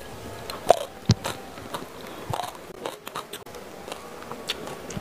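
Close-miked eating sounds: a mouthful of food being bitten and chewed, with scattered short crunches and wet clicks.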